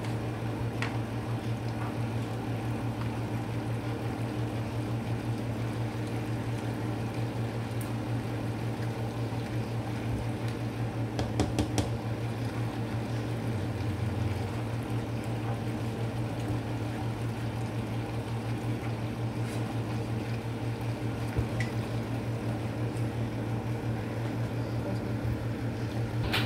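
A spoon stirring macaroni and cheese in a saucepan, with a short cluster of clicks of the utensil against the pot a little before the middle. A steady low hum from an appliance runs underneath.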